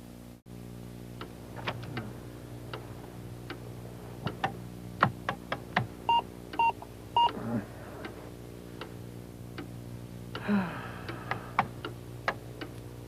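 Computer sounds over a steady electrical hum: scattered sharp clicks, like keys being pressed, and a run of three short beeps about half a second apart.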